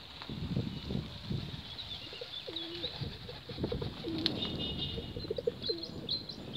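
Domestic pigeons cooing, a string of short low coos one after another, with faint high chirping of small birds over them.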